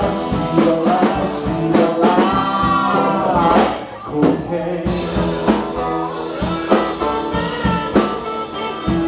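A live blues-rock trio playing: guitars over a steady drum-kit beat, with a voice holding and bending long sung notes partway through.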